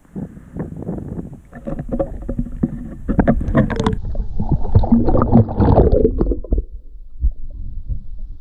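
Pond water splashing and sloshing against a handheld action camera held at the surface, loudest in the middle. Near the end the camera is underwater and the sound turns to a muffled low rumble.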